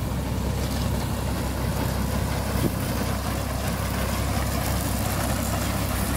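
A 1958 Fordson Dexter tractor's three-cylinder diesel engine running steadily as it pulls a reaper and binder through the field.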